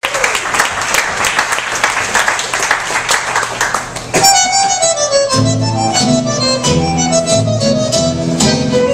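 Tango music: a bandoneon-led melody starts suddenly about four seconds in, and a low rhythmic accompaniment joins about a second later. Before it comes a stretch of noisy crackle.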